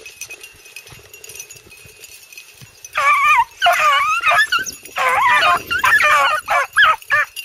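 A pack of rabbit-hunting dogs giving tongue in bursts of high, wavering yelps, starting about three seconds in. They are on the rabbit's trail, closing in on the shot rabbit.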